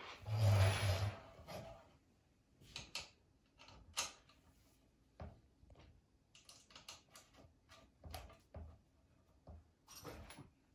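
Light metal clicks and taps, scattered and irregular, as bolts, nuts and the seeder's metal handle parts are handled during assembly, after a louder scuffing handling noise in the first second or so.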